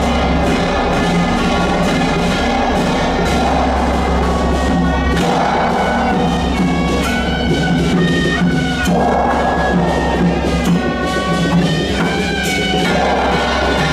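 Loud music with a steady beat and heavy sustained bass, and a melody that steps between held notes in the second half; the bass drops out briefly about five seconds in.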